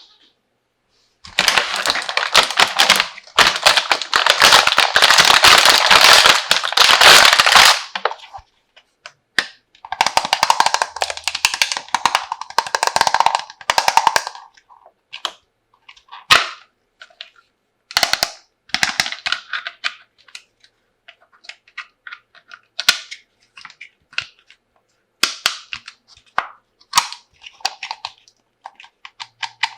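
Plastic packaging being handled and crinkled: several seconds of dense, loud crackling. After that comes a second crackly stretch, then scattered clicks and clacks of small hard plastic toy pieces being picked up and set down.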